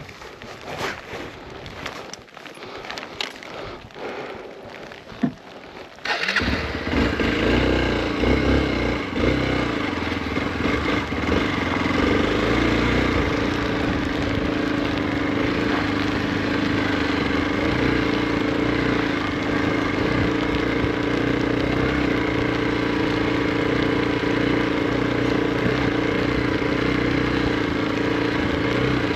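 Faint crackling and scattered ticks, then about six seconds in a Hero Xpulse 200's single-cylinder engine comes in suddenly and runs steadily at an even pitch.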